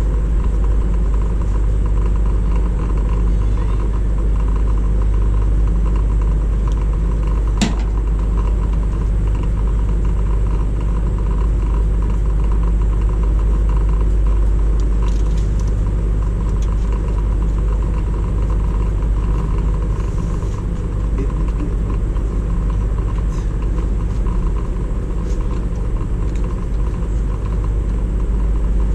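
A steady low rumble like an engine running, with one sharp click about a quarter of the way in.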